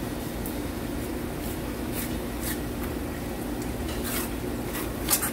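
Knife blade scraping along fish skin and the plastic cutting board as a fillet is skinned: a string of short, sharp scrapes, the loudest near the end, over a steady low hum.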